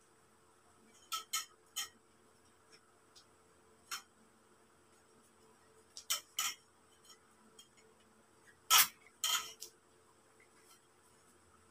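Metal tubes of a telescopic clothes rack clinking and knocking as it is put together: scattered sharp clicks and clinks, with the loudest pair about three-quarters of the way through.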